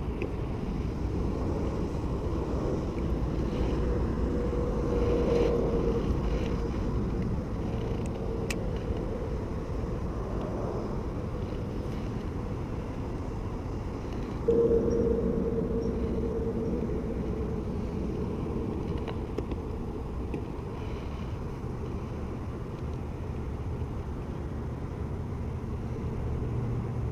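Small electric boat motor running with a steady hum over a low rumble. Its hum comes in suddenly and louder about halfway through, as the motor is switched up.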